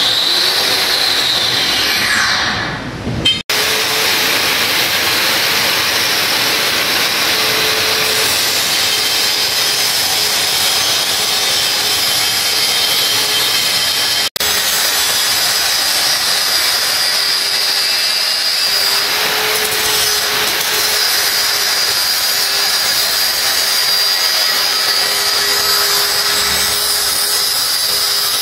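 Handheld electric angle grinder with an abrasive cut-off disc cutting through steel reinforcing bar: a loud, steady grinding with a high whine. In the first three seconds the whine glides up and then down, and the sound breaks off for an instant twice, about three seconds in and near the middle.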